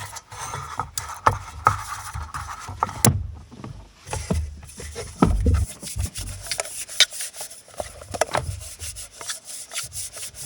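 Baking tins being greased with butter by hand: rubbing and scraping against the metal, with many sharp clicks and knocks as the tins are handled.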